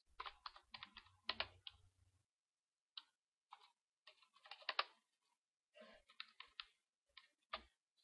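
Faint typing on a computer keyboard: quick keystrokes in short irregular runs with brief pauses between them.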